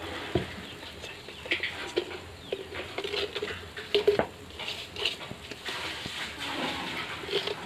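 Milk tea (chai) boiling in an aluminium saucepan on a stove, with irregular bubbling and popping.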